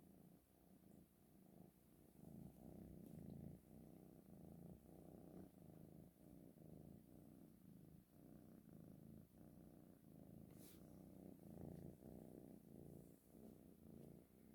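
Kitten purring softly and continuously close to the microphone, swelling and easing in a steady rhythm with each breath in and out.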